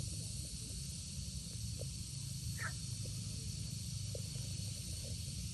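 A steady high hiss over a low rumble, with a few brief faint chirps.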